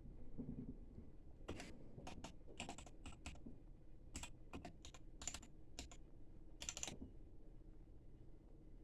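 Typing on a mechanical keyboard: irregular runs of crisp keystroke clicks, starting about a second and a half in and stopping about two seconds before the end.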